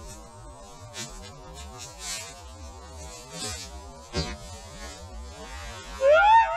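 A low wavering hum with scattered faint clicks and rustles, then about six seconds in a loud, drawn-out two-part call from a person's voice, rising and then falling in pitch.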